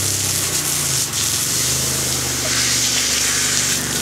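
Garden hose spraying water onto wet pavement: a steady hiss of spray. A low steady hum runs underneath.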